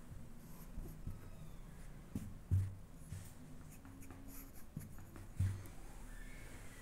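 Tailor's chalk scratching across lawn fabric as a curved cutting line is marked, with light clicks and two soft low thumps, one a little before the middle and one near the end.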